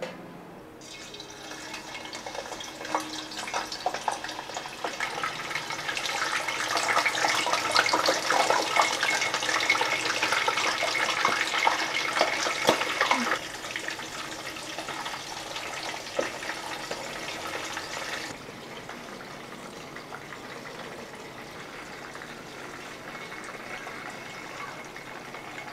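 Pork belly pieces deep-frying in hot oil in a wok: a dense sizzle full of crackles and pops. It builds over the first few seconds, is loudest for several seconds, then drops in two sudden steps to a quieter, steady sizzle.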